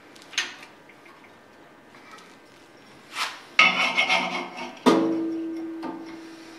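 Steel bar and metal chips scraping and clattering on a drill press table, then a sharp metal clank about five seconds in that leaves a clear ringing tone fading over about two seconds.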